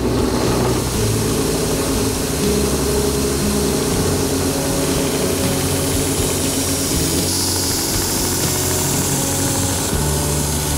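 Belt grinder running with a steady motor hum and belt noise. From about seven seconds in, a coil-spring steel knife blade is pressed to the moving belt, adding a bright grinding hiss for a few seconds.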